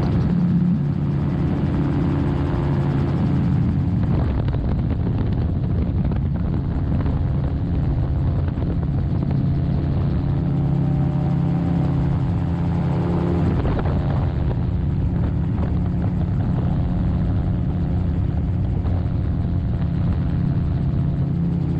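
Magni M16 gyroplane in cruising flight: its engine and propeller run at a steady drone, with wind rushing over the cockpit. The engine note shifts slightly about four seconds in and again a little past halfway.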